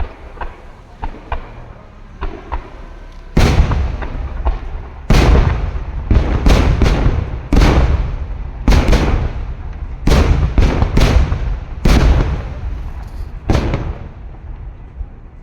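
Aerial fireworks shells bursting: a few light pops at first, then from about three seconds in a quick series of a dozen or so loud booms, some less than a second apart, each trailing off in a rumble.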